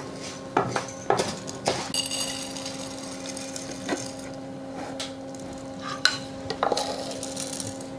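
Wooden spatula knocking and scraping against a metal kadai while roasted toor dal is emptied into a clay bowl: a quick run of sharp knocks in the first two seconds, then single knocks about four and six and a half seconds in. A steady low hum runs underneath from about two seconds in.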